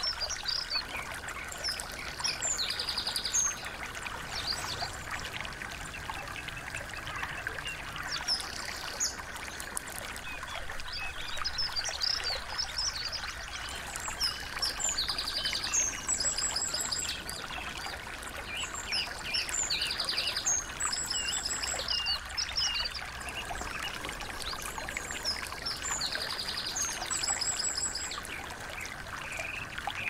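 Songs of small songbirds: quick high chirps and short, fast trills that come in bursts every few seconds. Underneath is the steady trickle of a small stream.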